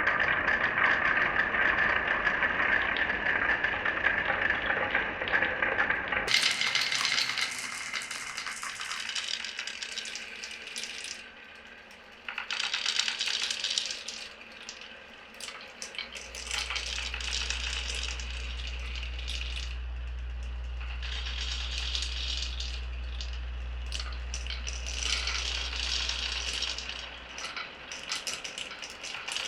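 Marbles rolling and clattering through a wooden and plastic marble run. For about the first six seconds many balls rattle together in a dense, continuous clatter; after that, single balls click and roll along the tracks. A steady low hum comes in past the middle and stops near the end.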